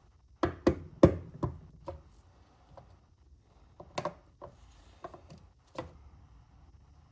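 Irregular sharp knocks and taps as tools and engine parts are handled. There is a quick cluster of loud hits in the first two seconds and a sparser group about four to six seconds in.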